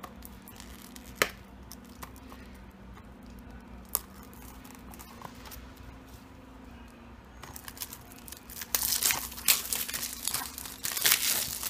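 Plastic shrink-wrap seal on a Blu-ray case being cut and torn off: a couple of sharp clicks, then from about seven and a half seconds in, loud crinkling and tearing of the plastic film.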